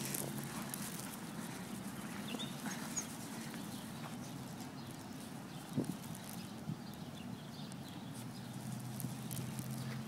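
Two dogs' paws scampering and scuffling on frozen, snow-dusted ground as they chase and wrestle, a patter of quick footfalls with scattered sharp clicks, over a steady low hum.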